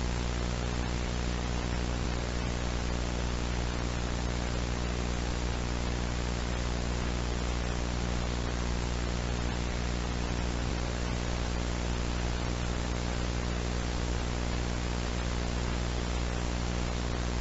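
Steady white noise like static hiss, with a low hum underneath.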